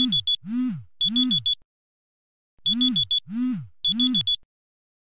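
Smartphone alarm ringing: quick clusters of four high beeps alternating with short falling tones, three in a row, then a pause of about a second before the pattern repeats.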